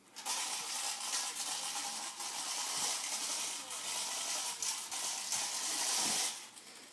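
Toddler's push-along popper car toy clattering and rattling continuously as it is pushed along, cutting off about six seconds in when it stops.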